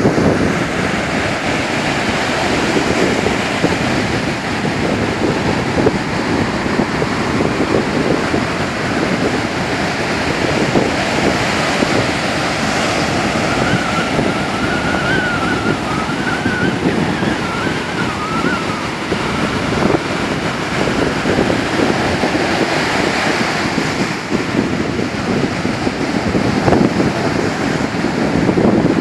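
Ocean surf breaking and washing up a sandy beach, a continuous rushing wash with wind buffeting the microphone. A thin, wavering tone sounds faintly for a few seconds in the middle.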